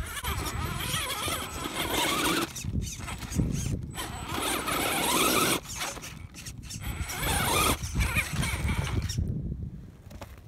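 Axial Wraith RC rock crawler's electric motor and gears whining as it climbs over boulders, the pitch rising and falling with the throttle in short spurts. The whine stops about nine seconds in.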